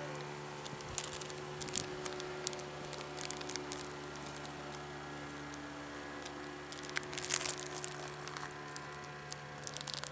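Plastic snack wrapper of a chocolate-coated wafer roll being torn open and crinkled in short bursts of rustling, over a steady electrical hum.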